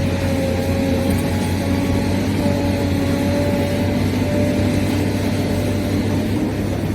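Huina 1593 RC excavator's motors running steadily, a constant low hum with a thin whine above it that wavers slightly in pitch.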